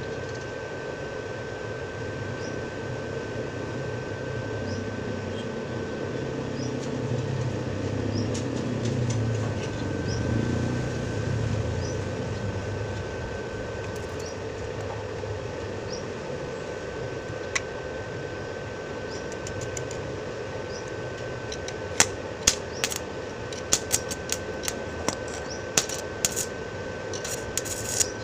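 Steady machine hum with a thin whine under it, then in the last quarter a quick run of sharp metallic taps, as the worn 6002 bearing is knocked out of a scooter's CVT cover.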